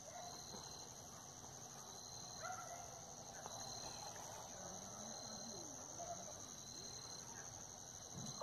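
Crickets trilling steadily at night, with a second, lower insect call giving short regular chirps about every second and a half.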